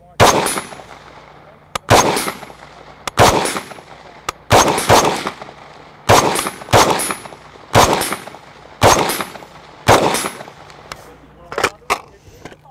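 IWI Tavor bullpup rifle fired semi-automatically: about ten sharp shots at roughly one a second, each with a short echoing tail. A few fainter sharp cracks come near the end.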